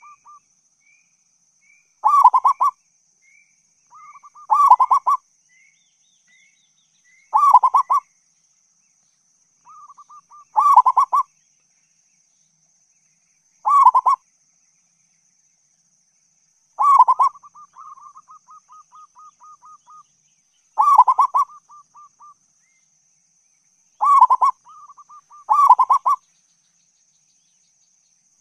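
Zebra dove (perkutut) cooing: a loud coo phrase repeated about every two to three seconds, some phrases trailed by a soft, quick run of short notes.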